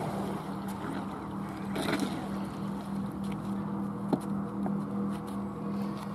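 Radio-controlled electric speedboat running on a 4S LiPo pack, its motor surging in a short burst of throttle about two seconds in as it comes in, over a steady low hum. A single sharp knock about four seconds in as the hull is scooped into a landing net.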